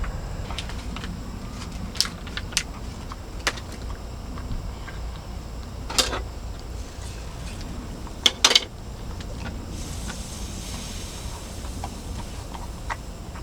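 A dog eating from a bowl: scattered sharp clinks and taps, loudest as a quick double clink about eight and a half seconds in, over a steady low rumble.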